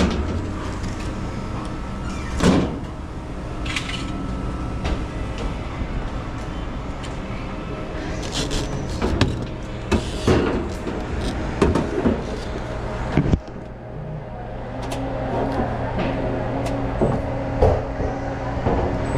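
Scattered knocks, clicks and clatter of hands-on work on a refrigerated display case, over a steady machinery hum. The hum changes abruptly about two-thirds of the way through.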